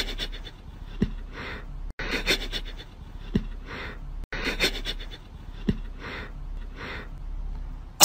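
A cat sniffing at a socked foot: soft, breathy sniffs in about five short puffs, a second or so apart.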